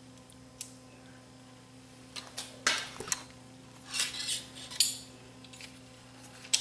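Metal clinks and clatters of a Teac 850 cassette deck's metal tape mechanism and motor bracket being lifted and handled inside the chassis, one click about half a second in, then two bunches of rattling clicks around two to three seconds and four to five seconds in.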